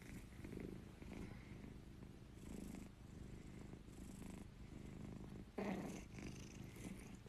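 Domestic cat purring, faint, in slow swells with each breath, one stronger swell a little before the end.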